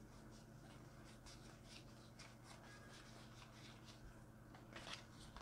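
Near silence, with faint rustles and soft ticks of game cards being handled and sorted in the hand over a steady low hum.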